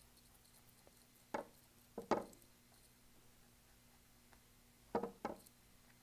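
A few soft, short knocks from brush and painting gear against a hard surface while painting: one about a second in, a quick pair about two seconds in, and another pair near the end.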